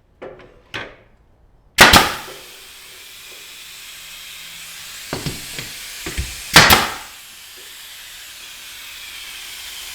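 Pneumatic nail gun firing into wood: a sharp double crack about two seconds in and another near the seven-second mark, with lighter knocks between. After the first shot a steady hiss of escaping compressed air sets in and slowly grows, the sign of an air leak in the nailer or its hose.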